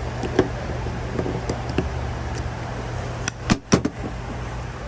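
Scattered clicks and a quick cluster of loud knocks about three and a half seconds in, from parts and tools being handled in a car's engine bay, over a steady low hum.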